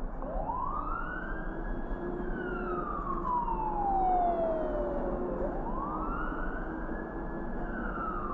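Emergency vehicle siren on a slow wail: the pitch rises quickly, holds, then slides slowly down over several seconds, and starts rising again about two thirds of the way in. Steady road rumble underneath.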